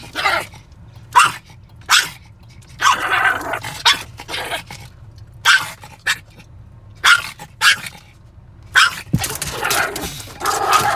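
Small dog barking in about a dozen short, sharp, irregular barks, excited at a squirrel outside the car, over a steady low rumble inside the car.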